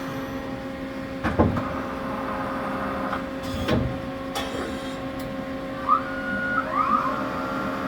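1989 Mori Seiki SL-15MC CNC turning center running through its program: a steady machine hum with two clunks, and near the end short rising whines as the live tool spins up and keeps running.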